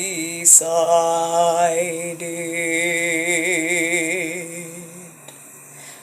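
A solo singer holding long notes with vibrato over a steady accompaniment, with a quick breath about half a second in; the voice fades out near the end.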